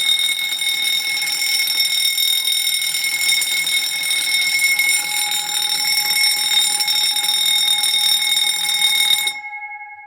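Electric fire alarm bell ringing continuously, its striker vibrating rapidly against the gong. The power cuts off about nine seconds in, and the gong rings on briefly as it fades away.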